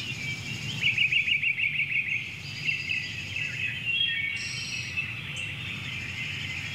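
Birdsong: several birds chirping and whistling, with a rapid trill about a second in, over a steady low hum.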